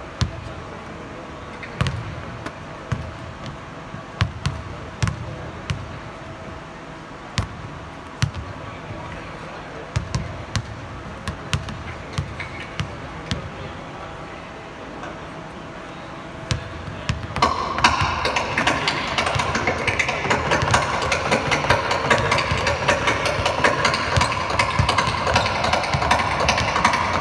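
Basketballs bouncing on a hardwood court and hitting the rim during shooting practice: scattered sharp thuds at irregular intervals. About two-thirds of the way through, a louder continuous noise sets in under the bounces and stays to the end.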